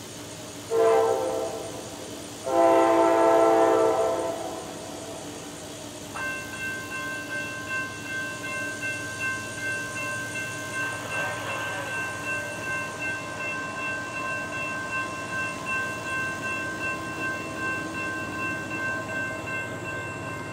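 An approaching CSX diesel freight locomotive sounds its horn, a short blast and then a longer one. About six seconds in, the grade-crossing warning bell starts ringing in a steady, even rhythm.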